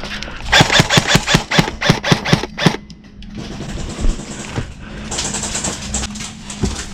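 Airsoft gun firing a rapid string of about a dozen shots in roughly two seconds, starting about half a second in. After a short pause comes a softer hiss with a few scattered faint ticks.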